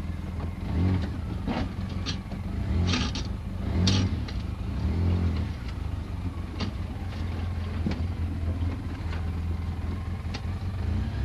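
Quad bike engine running at low revs, opening up in several short surges in the first half as it crawls over a rocky trail, with knocks and rattles from the machine bouncing over stones.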